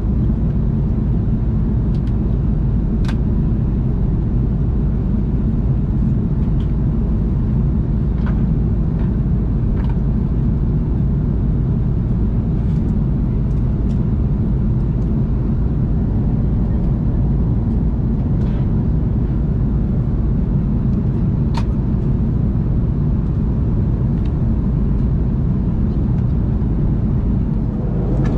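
Steady low rumble of an Airbus A330-300's economy cabin in cruise flight: engine and airflow noise, with a few faint clicks.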